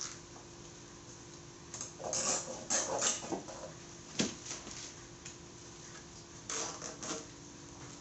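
Plastic zip ties and a rubber motorcycle tire being handled as the ties are threaded around the tire: scattered rustles and clicks about two to three and a half seconds in, a sharp click about four seconds in, and another cluster near seven seconds.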